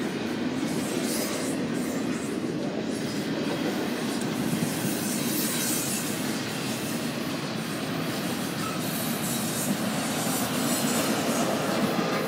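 Double-stack intermodal freight train rolling past: the steady rumble and rattle of its container cars' wheels on the rails.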